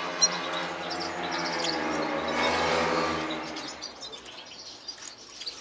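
Small cage birds chirping softly over a steady low mechanical hum, which fades out a little past halfway.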